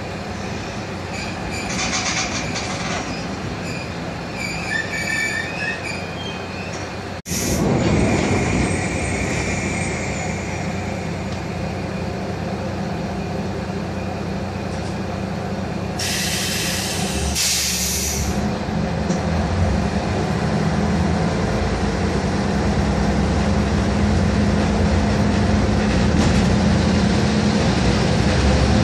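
Inside a Kanto Railway Joso Line diesel railcar: the train's running noise with squeals in the first few seconds, and an abrupt break in the sound about seven seconds in. Around the middle come two short hisses, then the diesel engine's low note builds steadily as the railcar pulls away.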